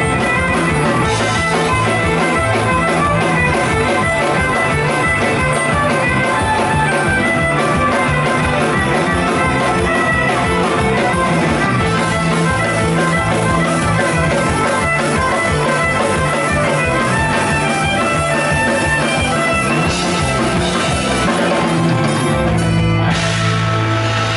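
Live folk-punk band playing fiddle, acoustic and electric guitars, bass and drums at a steady rock beat. Near the end the drumming stops after a final hit and a chord rings on, closing the song.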